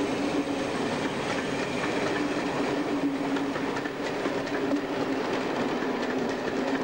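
Passenger coaches of a train rolling past close by, wheels clattering and clicking over the rails in a steady, continuous rumble with an even hum.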